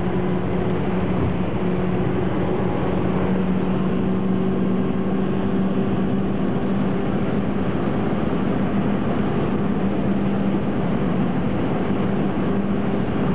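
Car driving at speed heard from inside the cabin: a steady engine hum at constant revs over a continuous rush of road and wind noise.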